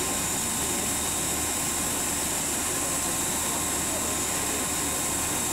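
Steady whine and rushing hiss of a parked Airbus A380's running machinery, unchanging throughout.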